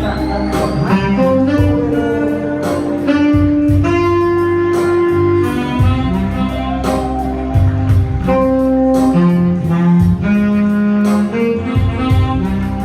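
Instrumental break of a slow Vietnamese ballad: a held, gliding lead melody over guitar and a steady beat, with no singing.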